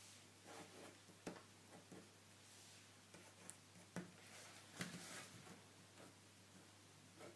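Faint scratching of a pen on paper in quick short strokes, with a few small clicks or taps about a second in, at four seconds and just before five seconds.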